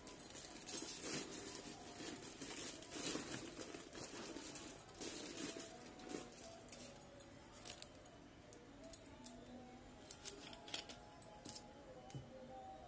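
Rustling and knocking as baby items are pushed into a soft handbag, followed by a series of sharp clicks and taps.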